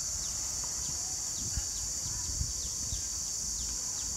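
Steady high-pitched insect drone from the trees, with short falling bird chirps repeating every half second or so. A few soft footsteps fall in the middle.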